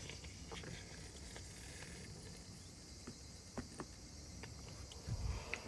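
Quiet room tone with a few faint, scattered light clicks and taps, and a soft low thump near the end.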